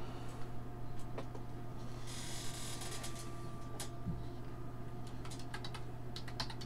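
Computer keyboard keys clicking in a quick run near the end, with scattered single mouse and key clicks earlier, over a steady low hum. A brief hiss comes about two seconds in.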